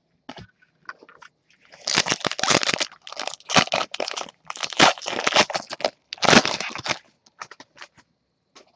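Foil trading-card pack wrapper crinkling and tearing as it is handled and opened, in several loud bursts from about two seconds in until about seven seconds in. Light ticks and taps of handling come before and after.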